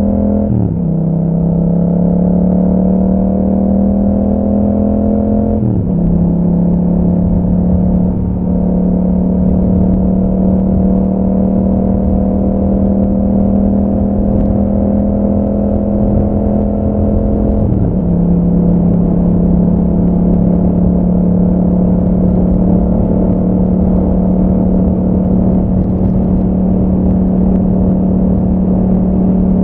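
2021 Yamaha MT-07's 689 cc parallel-twin engine running through an Akrapovic exhaust with a dB killer, under way at steady throttle. The engine note drops suddenly in pitch three times, about a second in, around six seconds in and around eighteen seconds in. After the first two drops it climbs slowly again.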